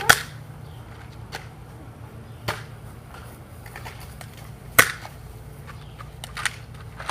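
Nerf blasters firing foam darts: a handful of sharp, short snaps a second or two apart, the loudest right at the start and a little before five seconds in, over a steady low hum.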